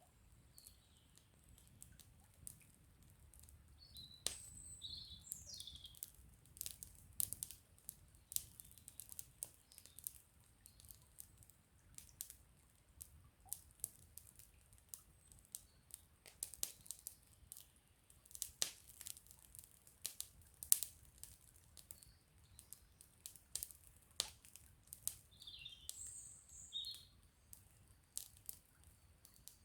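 Wood campfire crackling, with irregular sharp pops and snaps. A small bird chirps in short bursts twice, about four seconds in and again near the end.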